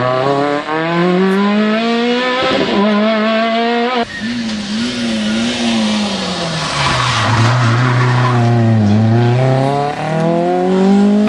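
Rally car engine at hard throttle, its note climbing and dropping with gear changes. About four seconds in the sound changes abruptly. The engine note then sinks low as the car slows, and climbs again near the end.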